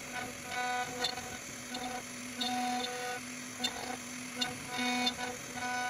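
Background music: a light instrumental track of short repeated notes with a ticking beat.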